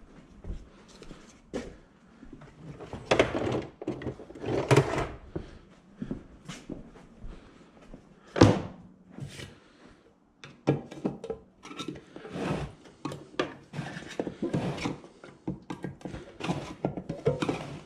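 Irregular knocks, thunks and rustling from objects being handled and set down, with louder knocks about three, five and eight and a half seconds in.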